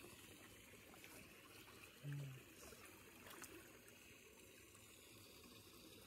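Faint trickling and sloshing of shallow pond water around people wading and handling koi, with a short low voice sound about two seconds in.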